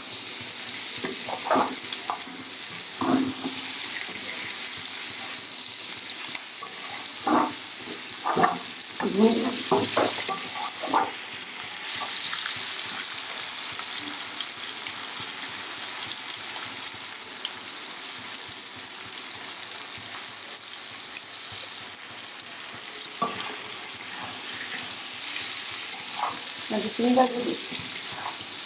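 Tiger prawns, jackfruit seeds and long beans sizzling steadily in hot oil in a kadai while being sautéed (kosha), with a steel spatula scraping and clinking against the pan now and then, in a flurry about ten seconds in and again near the end.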